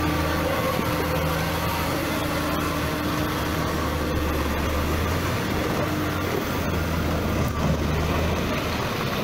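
Off-road SUV's engine running steadily as it drives through muddy ruts.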